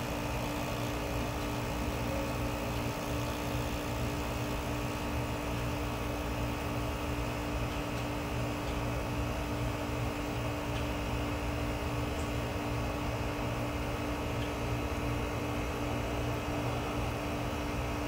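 Bryant heat pump outdoor unit running steadily during a defrost cycle: a continuous low mechanical hum with one steady tone and no change in pitch or level.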